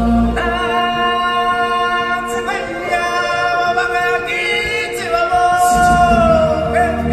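Stage-show music with a singer holding long notes that change pitch every second or two. The deep bass fades out just after the start and comes back near the end.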